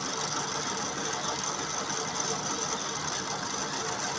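Industrial comforter quilting machine running steadily, its mechanism whirring and clattering without a break, during a warm-up run before stitching.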